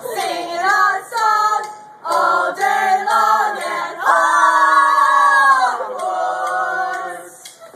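Several voices singing unaccompanied in chorus, with one long held note about halfway through before the singing fades out near the end.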